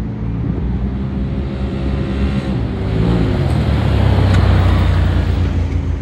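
Two side-by-side UTVs, one a Polaris RZR, drive past at speed. Their engine pitch drops as they go by, and the noise is loudest about four seconds in.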